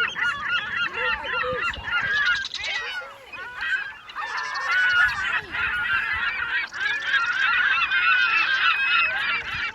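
A flock of farm poultry calling over one another in a dense, continuous chorus of short honking calls.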